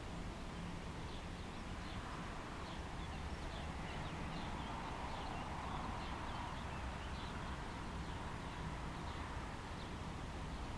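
Outdoor ambience with small birds twittering in many quick chirps, over a steady background hiss and a faint low hum.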